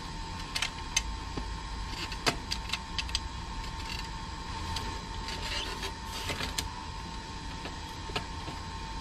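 Clicks and clatter of a folding electric bike being unfolded and set up: a run of sharp clicks from its latches and metal parts in the first three seconds, rustling handling in the middle, and one more click near the end. A steady faint whine and a low rumble run underneath.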